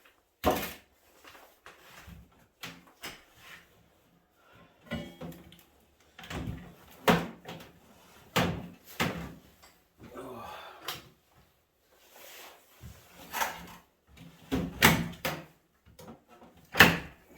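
Irregular knocks and clatter of metal parts and tools being handled while a microwave oven is taken apart by hand, with a short scraping stretch midway.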